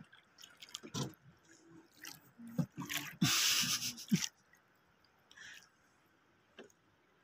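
Scattered light clicks and knocks as fishing line and tackle are handled in a small wooden outrigger boat, with a brief burst of rushing noise about three seconds in.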